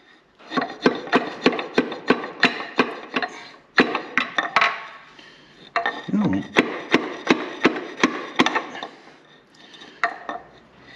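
Repeated hammer taps driving a piston and connecting rod up out of its cylinder bore. There are about three sharp knocks a second, in runs with short pauses.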